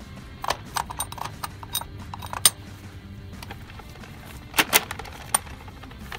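Background music under a scatter of sharp, irregular clicks and clinks, from a wipe and fingers working over the chrome coin mechanism of a gumball machine; the loudest clicks come about two and a half seconds in and as a quick pair near the end.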